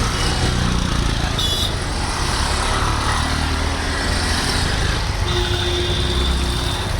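Busy city road traffic: vehicle engines running and vehicles passing in a steady, dense rumble.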